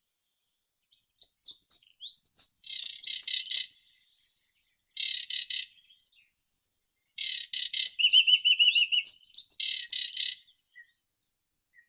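Songbirds singing in short separate phrases of high chirps and rapid note series, with silent gaps between them; a quick pitched trill comes about eight seconds in.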